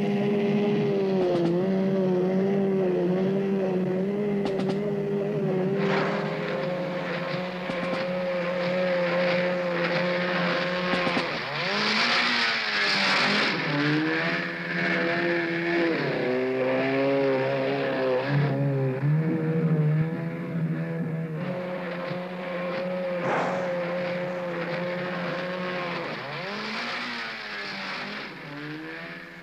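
Outboard motor of a Zodiac inflatable boat running at speed, its pitch dipping and recovering several times. A brief rush of water about twelve seconds in.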